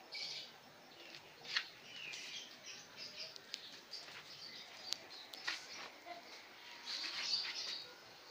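Small birds chirping over and over, with a few sharp clicks or knocks in between.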